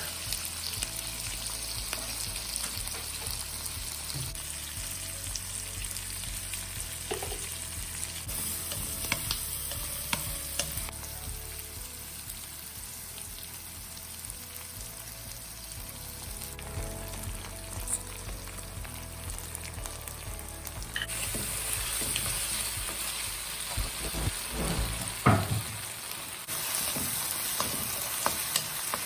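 Oil sizzling steadily in a pan as food fries, with scattered clicks and a few knocks of a spoon or spatula stirring. The sizzle jumps in level abruptly a few times.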